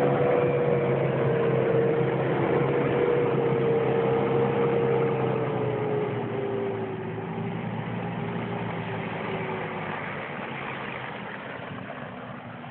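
Off-road SUV's engine pulling hard through slushy snow, its note held steady and then sinking a little past the middle, fading gradually as the vehicle drives away.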